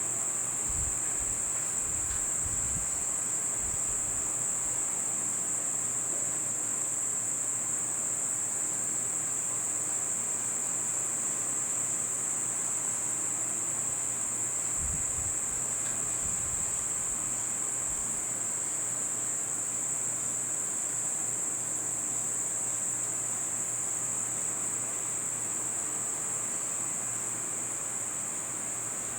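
Insects, crickets by the sound of it, trilling steadily in one continuous high-pitched drone. A few faint low bumps come about a second in and again around the middle.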